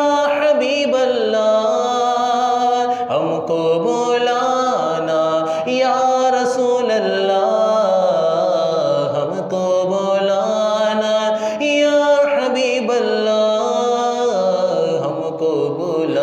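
A man's voice singing an Urdu naat, drawing out long, wavering melismatic notes that step up and down in pitch.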